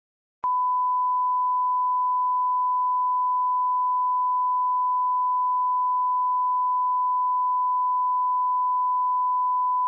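Long, steady electronic beep at one unchanging pitch, like a test tone, switching on with a click about half a second in and held unbroken.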